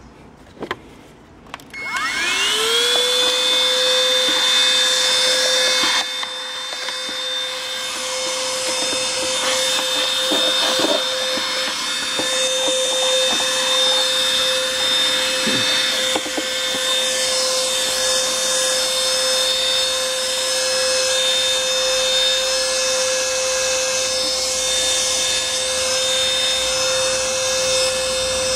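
Vacuum cleaner switched on about two seconds in, its motor whine rising quickly to a steady pitch. It then runs steadily, a little quieter from about six seconds in, as its nozzle is drawn over a dusty pleated paper engine air filter to suck the dust out.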